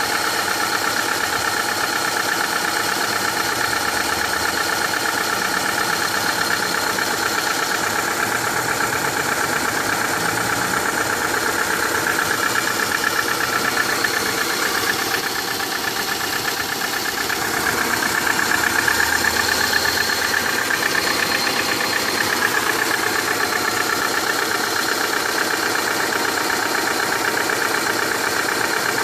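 Subaru Impreza EJ18 1.8-litre flat-four engine running warm with a rapid, steady knock. The owner suspects the fourth cylinder on this 305,000 km engine. About halfway through the sound dips briefly, then runs a little louder for a few seconds.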